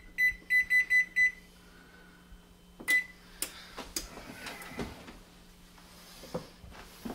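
Electric range's oven control panel beeping as its keys are pressed to set the oven for more cooking: six short beeps in quick succession in the first second and a half, and one more about three seconds in. Light knocks and clatter of a baking dish being handled follow.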